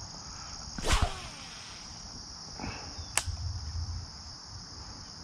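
A fishing rod is cast: a sudden swish about a second in, then line running off the reel. A sharp click follows about three seconds in. A steady high insect chorus carries on underneath.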